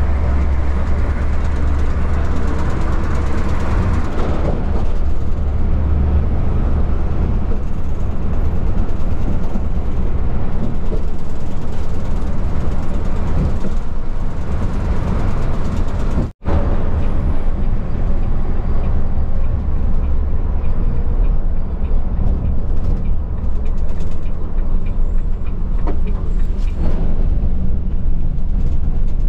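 Steady low rumble of a Volvo B11R coach's diesel engine and tyres at road speed, heard from inside the cabin at the front. The sound drops out for an instant about halfway through.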